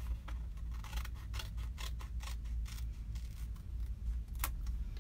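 Scissors snipping through a plastic silkscreen transfer sheet, a quick run of cuts about three a second, then sparser, with one sharper click about four and a half seconds in.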